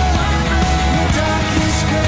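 Background music: a song with a steady bass and beat, in a stretch without sung words.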